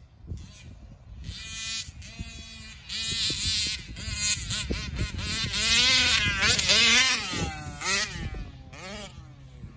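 Small two-stroke gas engine of a large-scale RC car revving up and down over and over, its pitch climbing and dropping with the throttle. It is loudest about six to seven seconds in and eases off near the end.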